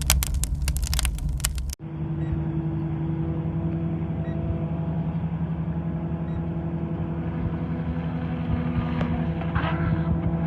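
Dense crackling clicks for about two seconds, then an abrupt cut to a steady motor drone that holds an even pitch.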